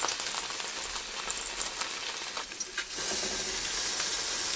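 Marinated chicken thighs sizzling on the hot grill grate of a Ninja Foodi Grill as tongs lift them off, with a few light clicks.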